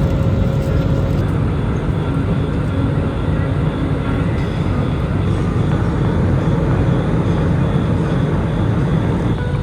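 Jet airliner noise: a steady, loud low rumble from the engines.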